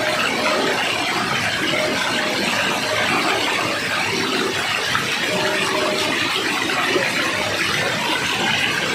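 Water rushing and pouring steadily, a continuous even splashing with no pauses, as from a waterfall.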